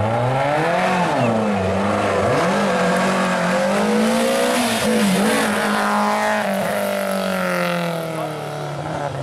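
Rally car engine driven hard, its pitch climbing and dropping again and again as the driver works the throttle and changes gear.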